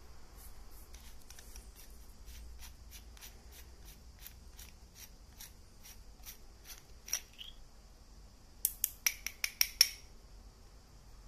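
Metal end cap of a telescopic baton being unscrewed by hand from the threaded handle: a steady run of faint clicks, roughly three a second, as it turns on its threads, then near the end a quick burst of about eight louder, sharp metallic clicks as the cap comes free.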